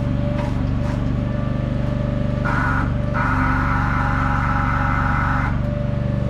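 An engine running steadily as the lift raises the housing. A higher steady whine joins it from about two and a half seconds in, with a short break, and stops shortly before the end.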